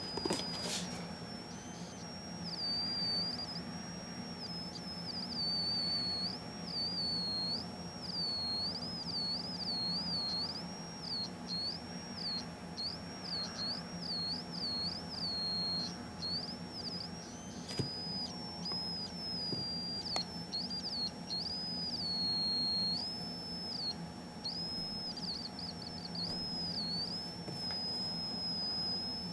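Atari Punk Console, a 555-timer square-wave synthesizer, sounding a high-pitched electronic tone through its small speaker. The pitch keeps stepping and wobbling between a higher and a lower note, quickly and repeatedly through the middle, and settles into longer held notes near the end.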